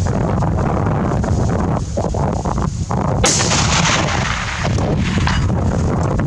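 A single rifle shot about three seconds in, its report trailing off over about a second, over steady wind buffeting the microphone.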